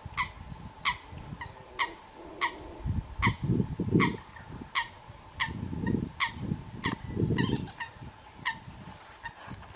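Eurasian coots calling: a steady run of short, sharp, explosive notes, each dropping quickly in pitch, about one every two-thirds of a second, with a low uneven rumble underneath.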